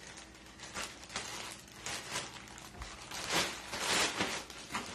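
Plastic mailer bag crinkling and rustling as it is handled and pulled open. It grows louder about three seconds in.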